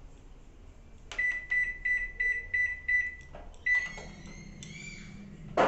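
LG convection microwave oven's keypad beeping as the buttons are pressed to set the baking time: about seven short beeps on one pitch, then a longer beep. The oven then starts running with a low steady hum. A sudden louder thump comes right at the end.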